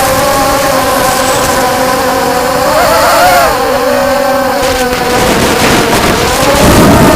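FPV racing quadcopters' electric motors and propellers whining, a high buzz that wavers in pitch as the throttle changes, with a marked rise and fall about three seconds in and again near the end.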